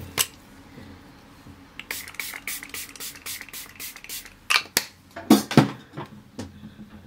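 Small pump spray bottle sprayed in a quick run of short hisses, about five a second, then a few louder knocks of handling near the end.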